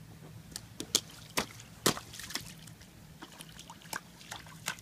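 A toddler's rubber rain boots stepping and splashing through a shallow puddle on pavement: a run of irregular small slaps and splashes, the sharpest about a second in, around two seconds in and near the end.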